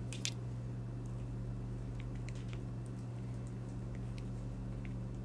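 Scattered faint clicks and soft squishes of a spatula working stiff cake batter into a silicone loaf pan, over a steady low hum.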